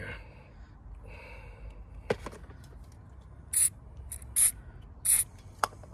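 Aerosol lubricant can sprayed onto a rubber hose in three short squirts, about a second apart in the second half, with a couple of light clicks between them.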